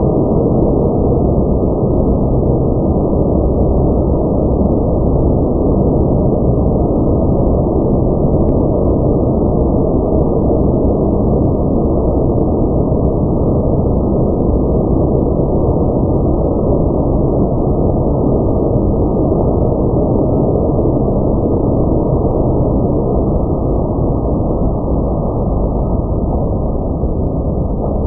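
Car wash equipment running: a loud, steady rushing noise, easing off slightly near the end.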